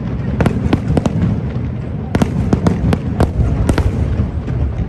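Fireworks display going off: a rapid, irregular string of sharp bangs, some in quick pairs, over a continuous low rumble of further bursts.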